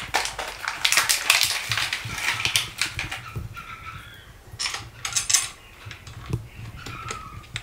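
Paper and plastic hardware packaging rustling and small metal bolts clinking as they are handled, with scattered sharp clicks, densest in the first few seconds and again about five seconds in.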